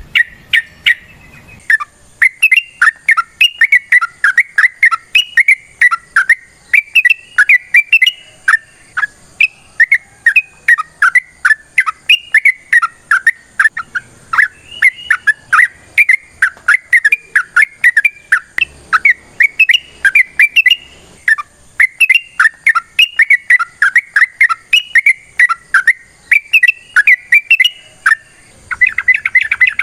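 Yellow-vented bulbul (trucukan) singing a long, unbroken run of quick bubbling whistled notes, several a second, phrase after phrase. The notes grow denser near the end.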